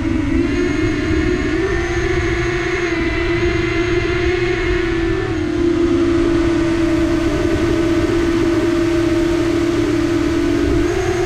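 Quadcopter drone's electric motors and propellers humming steadily. The pitch steps slightly up and down a few times as the motor speed changes, over a rough low rumble.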